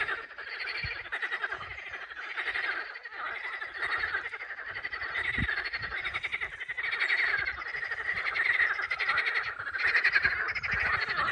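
A chorus of frogs calling continuously, a dense pulsing croak that swells and fades in waves.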